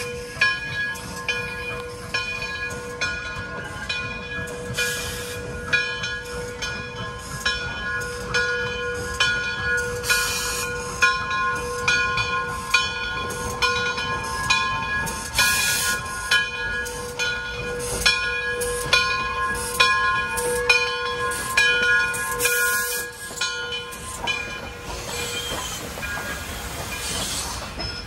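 Frisco 1630, a 2-10-0 steam locomotive, approaching slowly with its bell ringing steadily, about one and a half strikes a second. Short bursts of steam hiss come every few seconds, and a longer hiss comes near the end as it draws alongside.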